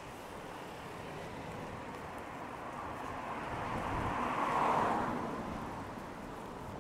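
A car passing on a wet road: its tyre hiss swells to a peak just under five seconds in and fades away, over a steady hiss of rain.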